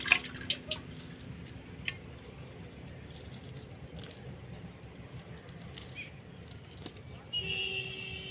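Scattered small wet clicks and drips as fish are worked out of a wet cast net on grass, loudest at the very start. A brief steady high-pitched tone sounds near the end.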